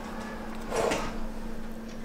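Plastic cling film crinkling briefly as fingers press it down around a watch, about a second in, over a faint steady hum.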